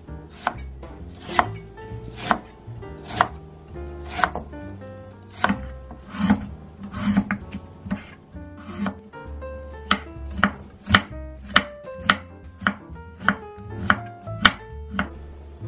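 Kitchen knife cutting ginger on a wooden cutting board: sharp, even chops about once a second, quickening to about two a second from about ten seconds in. Soft background music plays underneath.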